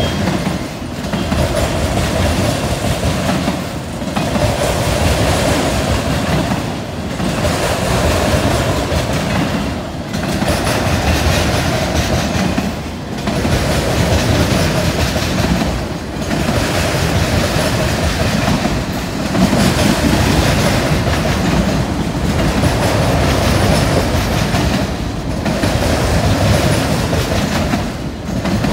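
CSX freight train's cars rolling past at a steady speed, wheels clattering over the railroad diamond crossing. The level dips briefly about every three seconds as each car goes by.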